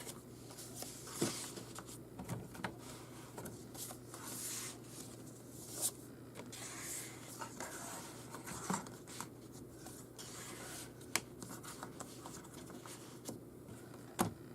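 Paper and cardstock of a handmade scrapbook album being handled: soft rustling and sliding, with scattered light taps and clicks, a sharp one about six seconds in and another near the end.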